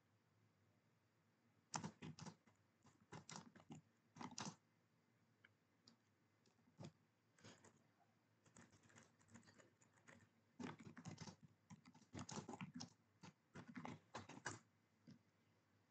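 Faint typing on a computer keyboard: quick runs of keystrokes broken by short pauses, starting about two seconds in.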